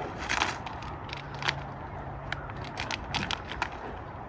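Plastic RV sewer-hose parts being handled and unpacked: several sharp clicks and crinkly rustles, over a low steady hum.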